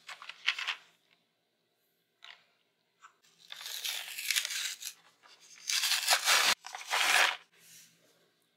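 Electric toothbrush packaging being opened by hand: paper and plastic wrapping crinkling and tearing in several bursts, the loudest and longest in the second half.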